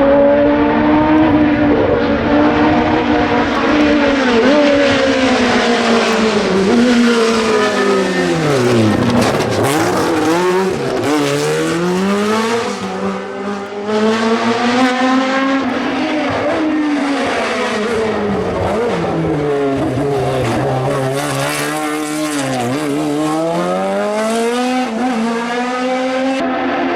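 Historic competition car engine driven hard, its revs repeatedly dropping and climbing again, with tyre squeal from drifting.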